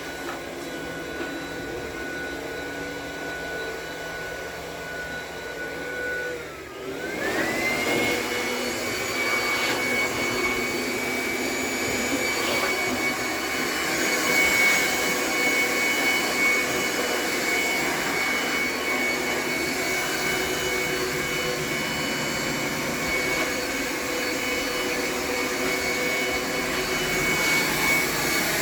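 A small motor runs with a steady whine. About six seconds in the whine drops briefly, then rises back to a higher, louder steady pitch.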